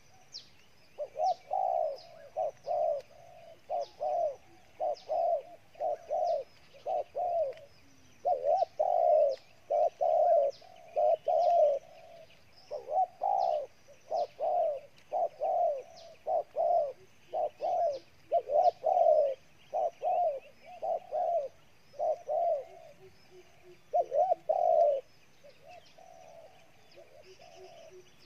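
A wild spotted dove giving its fierce 'gù' bowing coo: short low coos again and again in quick runs of two or three, going on through the whole stretch and softer for a few seconds near the end. Thin high chirps from small birds sound alongside.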